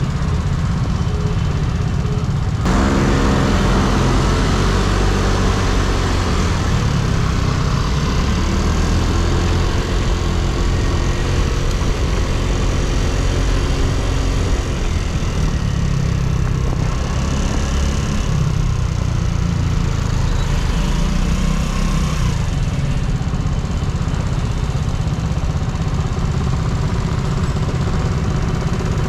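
Yamaha Cygnus X scooter's single-cylinder four-stroke engine running on the move. About three seconds in the engine speeds up, its pitch rising as the scooter accelerates, with rushing wind and road noise under it.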